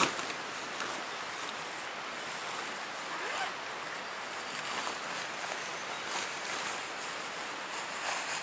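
Nylon tent fabric rustling and swishing as it is shaken out and gathered up, with a sharp flap right at the start and a few louder swishes later on.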